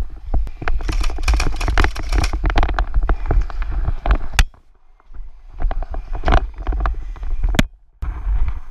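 Quick footsteps on dirt with gear and mask rattling, a dense run of short knocks and clicks over a low rumble on the microphone, pausing briefly twice. A sharp snap about halfway through and another near the end.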